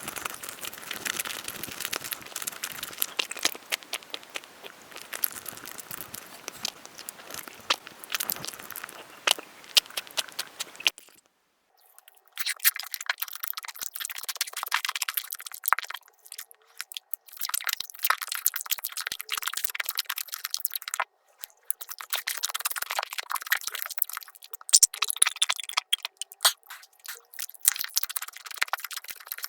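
Eating sounds from a Nutella pancake crepe sped up about ten times, turned into a fast stream of tiny crackling clicks. It breaks off briefly about eleven seconds in, then resumes over a faint steady hum.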